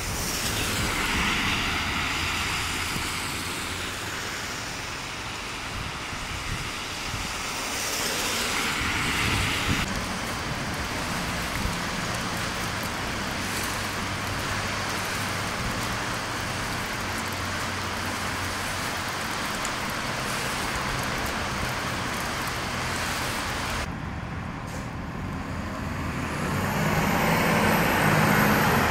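Street traffic noise, with cars and heavier vehicles running. The sound changes abruptly twice, and a vehicle grows louder near the end.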